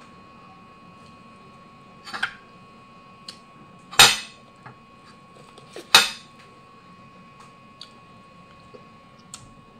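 Corn on the cob clattering and scraping against a plate as it is eaten without hands: three loud clatters about two seconds apart, the loudest about four seconds in, with a few small clicks between.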